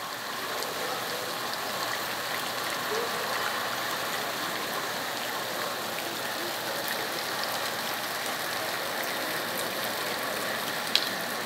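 Steady hiss of heavy rain falling on floodwater covering a street. One sharp click near the end.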